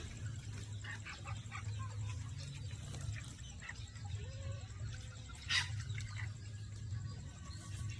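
A flock of chickens clucking and chirping in short, scattered calls, with one louder squawk about five and a half seconds in.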